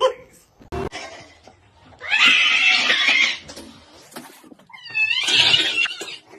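A cat hissing and yowling at its own reflection in a mirror, taking it for another cat. A long hiss comes about two seconds in, then a short yowl that rises and falls in pitch, and a second hiss near the end.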